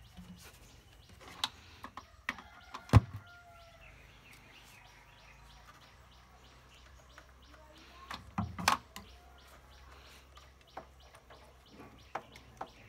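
Sharp clicks and knocks from handling wires and a plug-in module, the loudest about three seconds in and another cluster at about eight to nine seconds. Faint bird chirps sound in the background.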